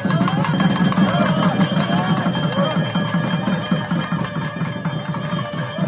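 Temple bells ringing continuously with rapid repeated strikes, over music.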